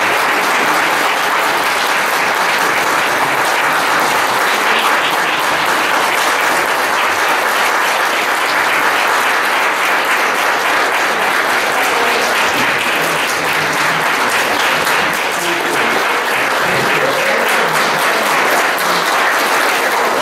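Audience applauding: a steady, sustained round of clapping that holds at an even level throughout.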